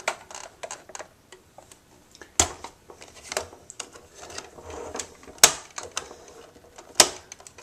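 Scattered small clicks and taps from handling a miniature Snap-on tool chest replica bank, its little parts being slid and worked, with sharper clicks about two and a half, five and a half and seven seconds in.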